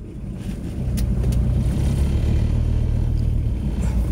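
Car engine and road noise heard from inside the cabin, growing louder about a second in as the car picks up speed, then a steady low hum.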